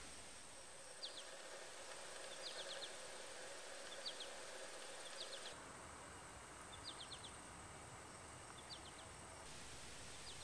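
Faint high chirps, each a quick group of two to four, repeating about every second and a half over a steady hiss with a thin high whine.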